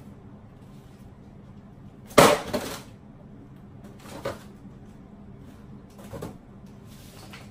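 A loud crash with a short rattle about two seconds in, made to fake the noise of a television being dropped. Two softer knocks follow.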